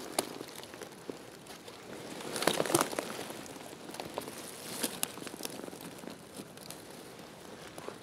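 Dry pine needles and twigs crackling and rustling as a hand reaches in among them and picks a chanterelle. There is a cluster of crackles about two and a half seconds in and a few sharp snaps around five seconds.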